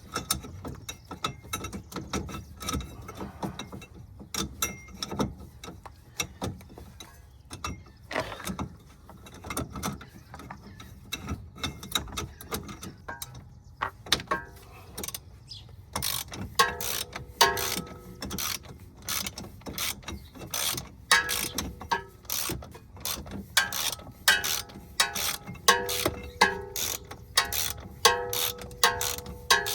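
Hand ratchet clicking as it turns an inner tie rod removal tool, unscrewing the inner tie rod from the steering rack. Scattered clicks give way about halfway through to quick runs of clicking strokes with a metallic ring.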